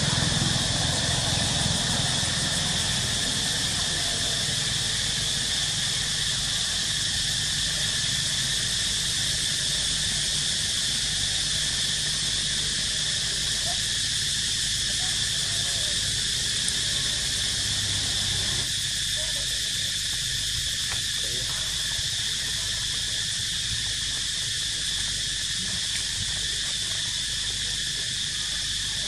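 Steady chorus of insects, a continuous high buzzing drone that holds level throughout.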